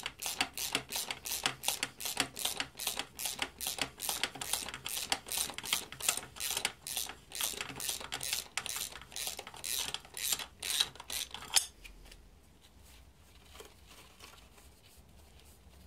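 Ratchet wrench clicking in a fast, even run as it spins an exhaust manifold nut off its stud. The nut is coming off freely. The clicking stops about twelve seconds in.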